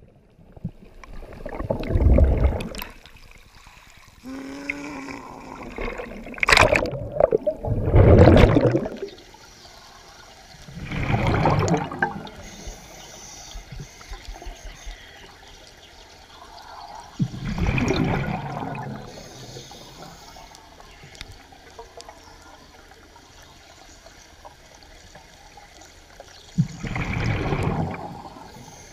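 Underwater, heard through the camera housing: a scuba diver's exhaled breath bubbling out of the regulator in five bursts, several seconds apart. The loudest burst comes about 8 seconds in, among churning bubbles just after the entry into the water.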